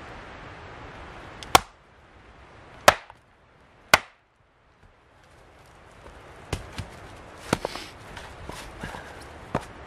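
Hatchet chopping into a green log on a chopping block: three sharp, loud chops a little over a second apart as the log is split. Several lighter wooden knocks follow later as the split pieces are handled on the block.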